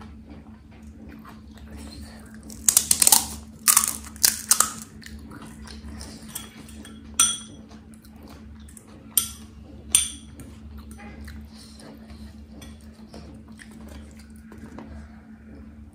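Crisp, hollow puri shells crackling as they are handled and broken open, in two loud bursts a few seconds in. Then come three sharp, ringing clinks of a metal fork against a dish, about a second or two apart.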